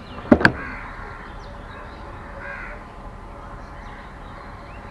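Crows cawing, harsh calls coming a couple of times, with two sharp clicks in quick succession about half a second in and faint chirps of smaller birds in the background.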